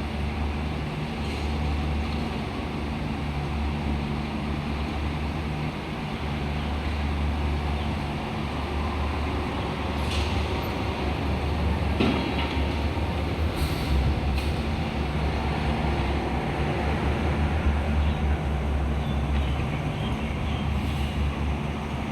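Diesel engine of a mini excavator running steadily under work, with a few sharp knocks near the middle.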